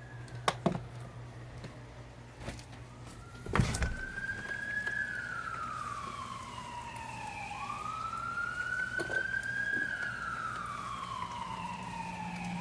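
Emergency vehicle siren wailing, rising and falling slowly in long sweeps, starting a new rise about eight seconds in and again near the end. Under it runs a steady low hum, with a sharp knock about three and a half seconds in.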